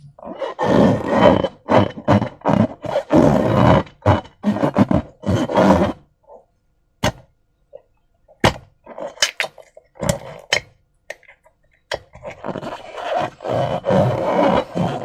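Slime and rubber balloons being worked by hand, making wet, squelching, rubbery noises in irregular bursts. In a sparser middle stretch there are several sharp clicks or snaps, before the dense squelching picks up again.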